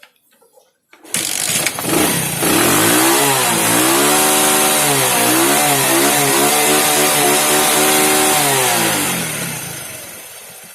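Motorcycle engine starting about a second in, revved up and down a few times, then running steadily before dying away near the end.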